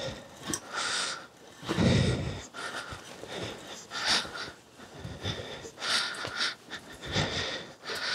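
Hand tap cutting threads in a drilled hole in a metal plate, turned stroke by stroke with a T-handle tap wrench and lubricated with Anchorlube tapping fluid: short scraping, squeaky bursts about every second or two.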